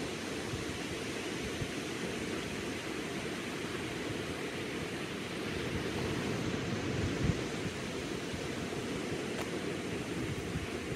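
Surf from small waves breaking along a sandy beach: a steady hiss with a low, uneven rumble underneath, swelling a little about six to seven seconds in.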